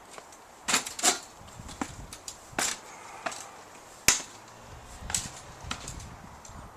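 Irregular sharp clicks and knocks, about five louder ones among fainter ticks, over faint background hiss.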